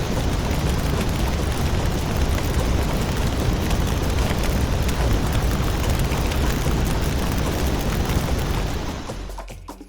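Steady, loud rumbling machine noise, fading away near the end.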